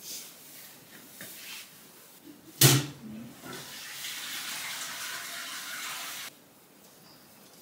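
Toilet flushing: a loud clunk, then about three seconds of rushing water that cuts off suddenly.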